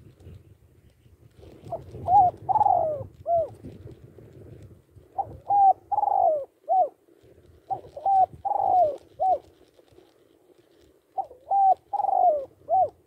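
Spotted dove cooing: four phrases of about four notes each, the third note of each phrase the longest, a few seconds apart.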